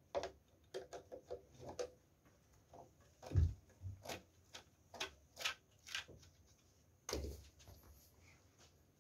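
Hand tools clicking and knocking on the battery's terminal hardware as the terminals are removed: scattered sharp clicks, a quick run of them about a second in, and two heavier knocks, about three and a half and seven seconds in.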